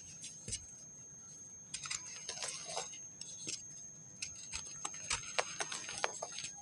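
Dry pressed sand crumbling: a quiet start, then from about a second and a half in a dense run of gritty crunches and small sharp crackles as pieces break and fall, with a couple of soft thuds.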